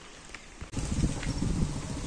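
Footsteps on a dirt path, irregular knocks over a low rumble of wind on the microphone; the sound turns suddenly louder about two-thirds of a second in.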